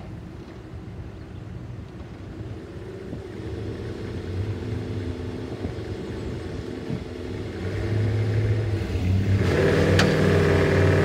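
A 2004 Chevrolet Avalanche's V8 engine working under load as it tows a pickup truck, growing steadily louder, with a sharper rise about eight seconds in. A single sharp click near the end.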